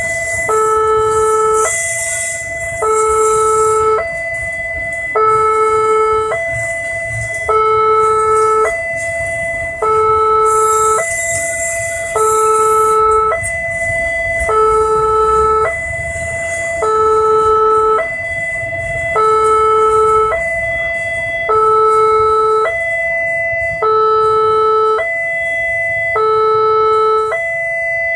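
Railway level-crossing warning alarm sounding a repeating two-tone signal, switching between a low and a higher tone that are each held just under a second. It signals that the barriers are down and a train is crossing. Under it a container freight train rolls past with a low rumble and bursts of high hiss, at the start and again about eleven seconds in.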